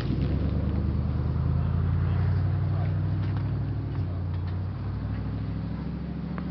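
Antique tractor engine idling with a low, even hum; it eases down slightly about four and a half seconds in.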